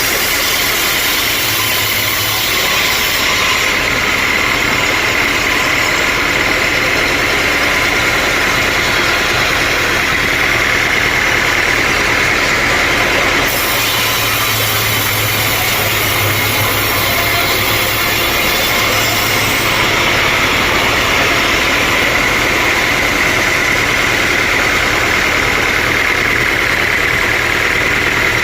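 Sawmill running steadily with a constant high whine, and a harsher hiss for a few seconds at the start and again from about halfway in, as the saw works through teak stump wood.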